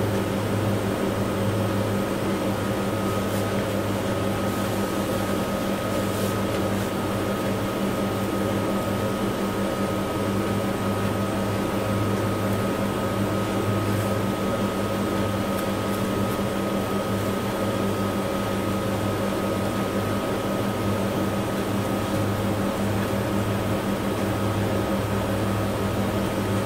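Steady machine hum with a thin high whine over it, the kind of sound a running fan or air conditioner makes, with a few faint light clicks.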